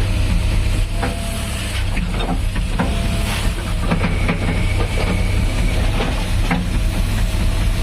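Diesel engine of a JCB 3DX backhoe loader running steadily under work, with scattered short knocks and clanks and a faint steady whine.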